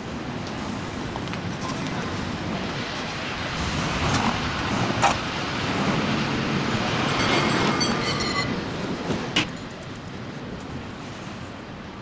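City street ambience: steady traffic noise that swells through the middle. About seven seconds in, a metallic bell rings in a quick run of strokes for a second or so, and there are two sharp knocks, one before the bell and one after it.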